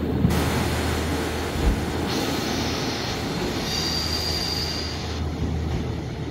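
Diesel multiple unit train running on the rails, with a steady low engine hum. A high-pitched wheel squeal comes in about two seconds in and stops about five seconds in.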